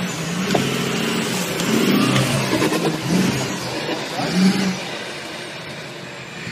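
4x4 pickup truck engine revving hard under load, pitch rising and falling in surges as the truck climbs a steep dirt bank; quieter near the end.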